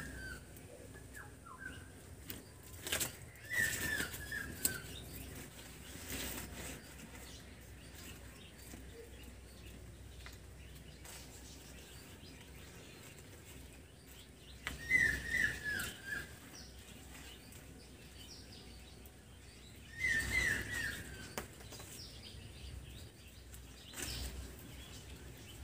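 A bird calling in three short bouts, each a quick run of chirps stepping down in pitch, over a faint steady background, with a few scattered knocks.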